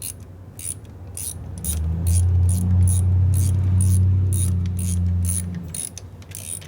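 Ratchet wrench clicking steadily, about two to three clicks a second, as transmission bolts are run in. A loud low hum swells up about one and a half seconds in and dies away near the end.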